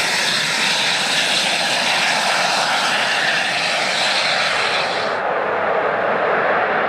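Saab JAS 39 Gripen fighter's single Volvo RM12 turbofan jet engine running loud and steady on the ground. The highest hiss cuts off suddenly about five seconds in.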